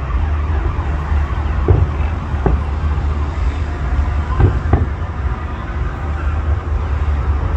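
Steady city traffic noise rising from the road below, with distant firework bangs: two about two seconds in and two more around four and a half seconds in.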